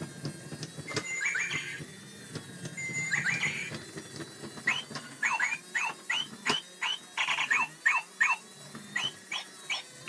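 Electronic bird toy's sound chip chirping: short falling chirps, a few at first, then quick runs of them from about halfway through, with a few sharp clicks from handling the toy.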